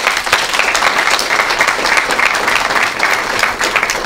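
Audience applauding: many hands clapping together in a dense, steady burst that starts suddenly just before and holds at full strength.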